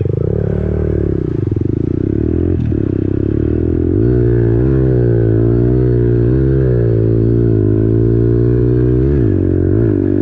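Pit bike engine running as the bike is ridden along sand. The throttle opens about four seconds in for a louder run, the pitch rising and falling as it is worked. The throttle drops off briefly about nine seconds in, followed by a couple of quick blips.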